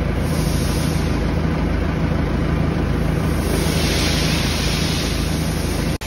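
Steady drone of workshop machinery with a constant low hum, and a brief hiss about four seconds in.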